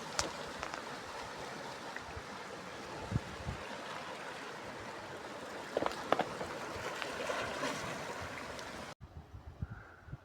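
Steady rush of sea water washing and gurgling among shoreline rocks, with a few faint clicks. It cuts off abruptly about nine seconds in, leaving a much quieter background.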